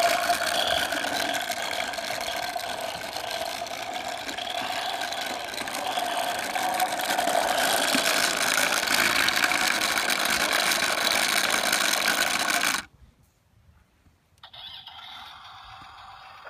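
A John Deere toy tractor's electronic engine-running sound, steady and loud, cutting off suddenly about 13 seconds in. Then quiet outdoor background.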